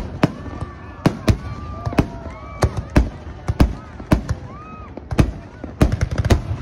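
Fireworks display: aerial shells bursting one after another in quick, irregular succession, about two or three sharp bangs a second.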